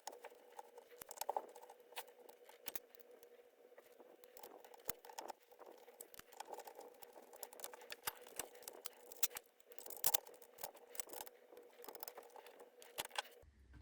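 Faint, irregular clicks, taps and rattles of small parts being handled and fitted while mounting a piece onto a mini bench grinder, over a faint steady hum.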